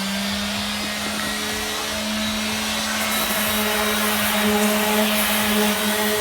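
A handheld electric power tool's motor running at steady full speed, a continuous whine with a hiss over it, having just spun up.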